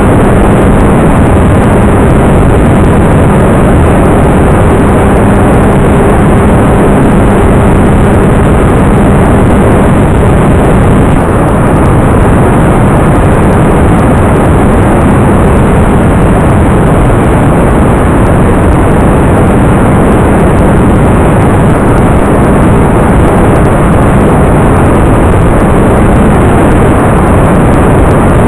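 Talon FPV model plane in flight: loud, steady rush of wind and propeller noise with a faint hum from the electric motor, stronger in the first ten seconds or so.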